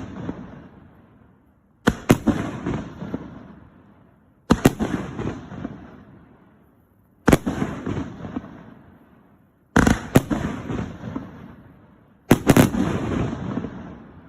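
A 25-shot cake firework firing shot after shot: five sharp bangs about two and a half seconds apart, some as a quick double crack, each followed by a crackling trail that fades away over about two seconds.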